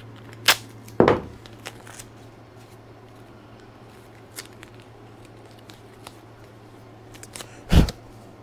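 Double-sided tape being handled, cut and its backing paper peeled: a few short sharp snips and crinkles, the loudest near the end. A steady low hum runs underneath.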